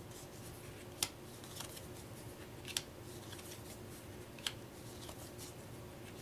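Card-stock game cards being dealt one by one off a small stack onto a wooden tabletop. Each card lands with a sharp snap, roughly every second and three-quarters, with soft paper rustling between.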